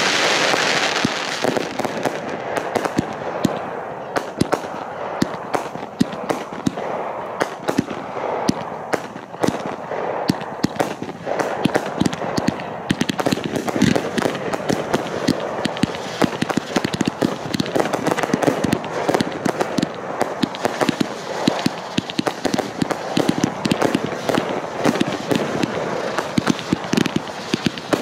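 Fireworks crackling and popping continuously, dense sharp cracks with no pause, opening with a loud rushing hiss in the first second or two.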